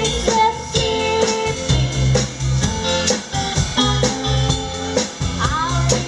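Live band music: a woman singing over guitar, drum kit and tambourine, with a steady beat.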